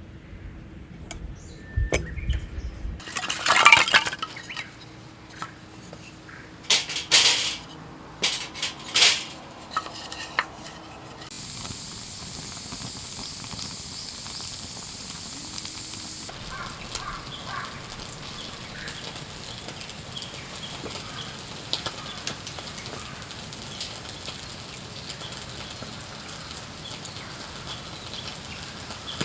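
Clinks and knocks of dishes and utensils, a few sharp strikes in the first ten seconds. Then a steady hiss that starts and stops abruptly, followed by a quieter hiss with light crackling.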